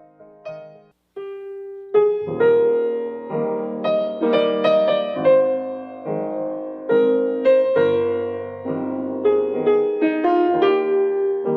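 Background piano music: a few soft single notes, a short pause, then a fuller melody with chords from about two seconds in.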